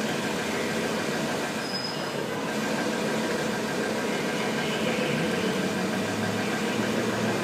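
Steady city traffic noise with vehicle engines running close by. A brief high-pitched squeal comes about two seconds in, and a low engine hum grows near the end.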